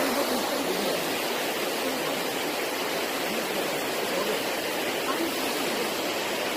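Steady rush of falling water from the cascades of Towangseong Falls spilling down the rock gorge.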